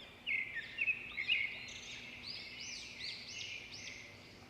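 Small birds chirping: many quick chirps that rise and fall in pitch, loudest and closest together in the first second and a half, then continuing more softly.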